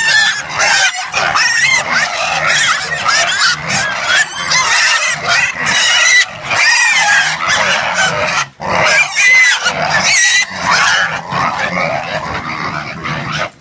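A pen of hungry piglets squealing loudly all together while waiting to be fed, with many high squeals overlapping and a brief lull about eight seconds in.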